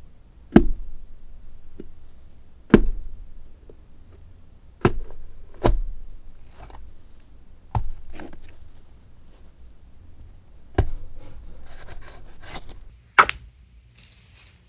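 A blade stabbing and chopping into produce as foley for stabbing flesh: about seven sharp strikes a second or two apart, each trailing off briefly, the loudest two near the start.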